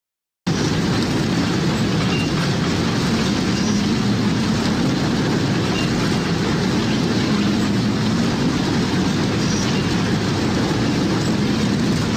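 Strong storm wind blowing across the microphone with the rush of heavy, breaking sea, a loud, steady noise that starts abruptly about half a second in.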